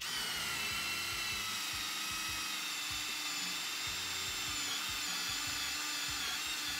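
Cordless drill boring a 10 mm hole into a structural-lumber board with a carbide-tipped multipurpose 'bullet' bit (Zest Z-HT7P), starting suddenly and running with a steady motor whine whose pitch dips slightly a couple of times under load. The bit grinds its way in easily, heating the wood enough to scorch it.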